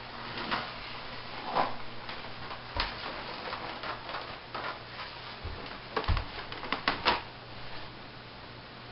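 Scattered light clicks and taps, with a quick run of them about six to seven seconds in, over a faint steady low hum.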